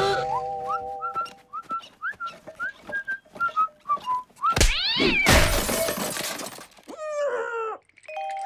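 Cartoon sound effects: a jaunty whistled tune in short stepping notes over light ticking steps, then a quick rising-and-falling whoosh and a loud crash as Oggy is knocked flat and his shopping scatters. A short falling, wavering cry follows.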